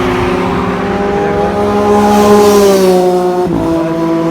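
Kawasaki Ninja sportbike engine running at high revs as it goes by, its pitch rising a little and then falling, with a sudden drop about three and a half seconds in.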